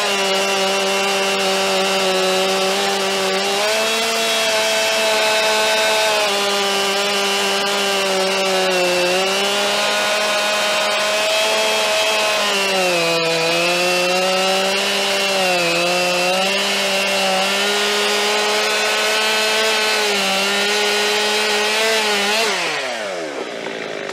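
Stihl MS 261 C petrol chainsaw, a single-cylinder two-stroke, running at full throttle through one long cut in a big log, its pitch dipping and recovering a little as the chain loads up in the wood. Near the end the cut is through and the engine winds down quickly as the throttle is released.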